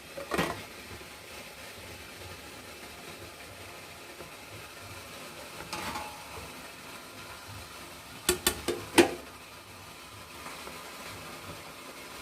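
Kitchenware being handled as the plate covering the cake bowl is lifted and the cake checked: a knock near the start, a softer clink around six seconds, and a quick run of sharp clicks and clinks of plate and utensils about eight to nine seconds in, the loudest sounds, over a low steady background noise.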